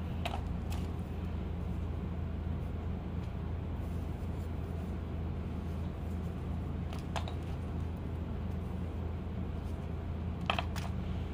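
Steady low hum with a few light clicks as slate pieces and small clay pots are handled and knocked together, a close pair of clicks coming near the end.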